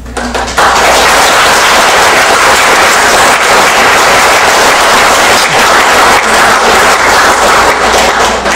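Audience applauding: a few scattered claps, then full, steady applause from about half a second in, loud throughout.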